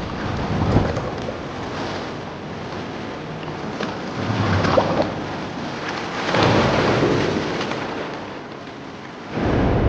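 Stormy seaside ambience: a steady hiss with deep rumbling swells that rise and fall, strongest about four and six and a half seconds in.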